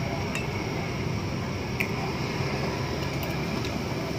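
Chicken noodles being eaten with a metal fork and spoon from a bowl: a few light clicks of the cutlery over a steady low background rumble.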